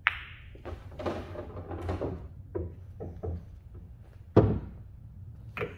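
Pool balls clacking: a sharp click right at the start as the cue ball strikes the object ball, then smaller knocks and rattles of balls and cue handling, and a heavier thump about four and a half seconds in.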